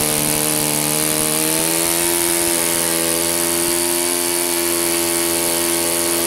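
ASP 5cc single-cylinder four-stroke glow engine on a model airplane running steadily at high throttle. Its pitch edges up about a second and a half in, holds, then starts to drop as it is throttled back at the very end.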